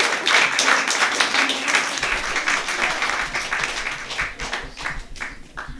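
A small audience applauding, a dense patter of many hands clapping that thins to a few scattered claps and dies away near the end.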